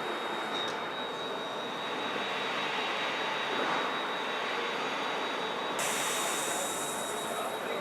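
Asquith VNCT 2000-1500 CNC portal milling machine running, a steady mechanical noise with a constant high whine. Just before six seconds in a sharp high hiss starts suddenly and carries on.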